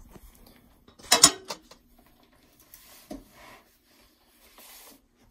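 Handling noise at a desk: a sharp clatter about a second in, then softer rustles and shuffles, over a faint steady hum.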